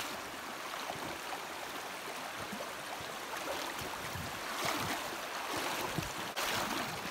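Shallow rocky creek rippling steadily, with the splash and swish of legs wading through the current, a little louder a few times near the end.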